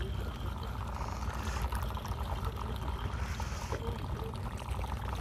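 Steady low rumble and splashing water noise around a fishing boat, with a baitcasting reel being cranked as a hooked fish is wound up to the surface.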